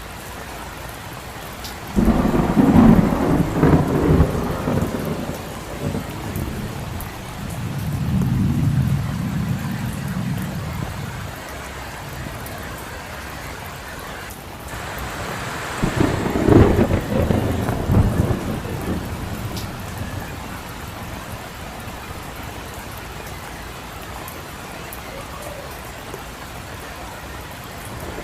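Steady rain falling on a street, with two rolls of thunder: one breaking suddenly about two seconds in and rumbling on for several seconds, the other about halfway through.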